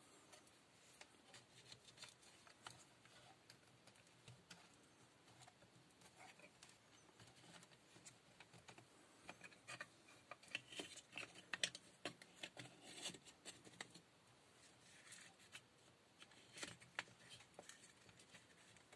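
Faint clicks and rustling of small plastic parts being handled: a cordless drill's trigger switch and wiring being fitted into its red plastic housing half. The clicks are busiest and sharpest through the middle, with another short flurry near the end.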